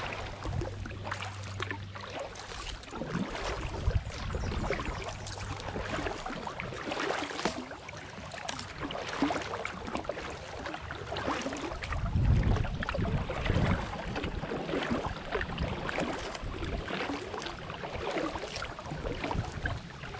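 Kayak paddle strokes through calm creek water: irregular dips, drips and small splashes. A faint low hum fades out about six seconds in, and a low rumble comes about twelve seconds in.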